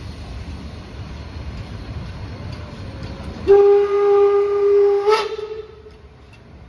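Henschel-built class 01 steam express locomotive sounding its steam whistle in one steady blast about a second and a half long, with a brief upward flick as it shuts off. Before the whistle, the low rumble of the train approaching.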